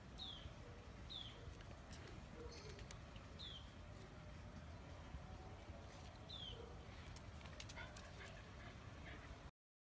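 Quiet garden ambience with a bird giving a short, high, falling chirp four times at uneven gaps. The sound cuts off just before the end.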